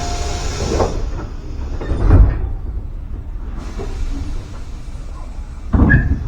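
Tobu Kameido Line train running, a steady rumble with a few heavy knocks, one about two seconds in and another near the end.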